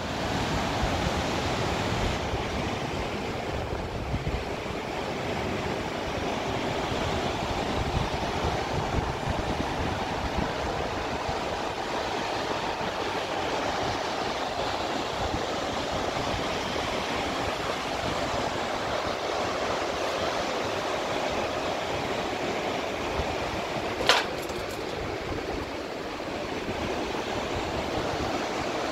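Fast mountain river rushing steadily over rapids, a constant roar of whitewater. Near the end a single short sharp click cuts through.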